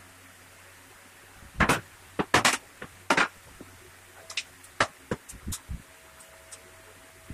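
Cut MDF pieces being handled and set down on a wooden workbench: a run of sharp knocks and clacks, the loudest between about one and a half and three seconds in, then a few lighter taps.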